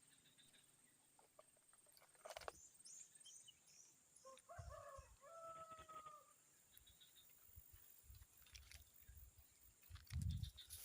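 A rooster crows once, faintly, about four seconds in: a two-part call with a bending first note and a longer held note. Small birds chirp a few times before it, a steady high insect-like whine runs underneath, and a few low thumps follow, the loudest near the end.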